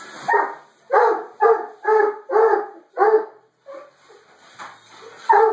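Black and tan coonhound barking, a quick run of about six loud barks in the first three seconds, then a weaker one and, near the end, another.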